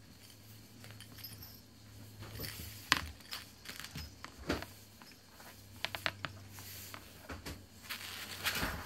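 A small bell on a toy poodle puppy's collar jingling in short, scattered bursts as it tugs and shakes a rope toy, with light knocks and scuffs on the floor.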